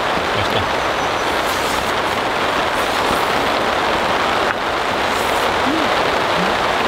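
Heavy rain pouring down on a camping tarp: a steady, dense hiss.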